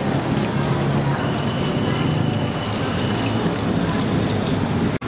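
Busy street ambience: steady traffic noise with a continuous hiss and indistinct background voices, broken by a sudden momentary dropout near the end.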